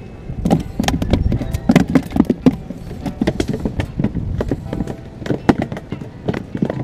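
Rapid, irregular knocks and thumps, several a second, from a fresh-caught milkfish going into a plastic cooler and being handled on a bamboo dock.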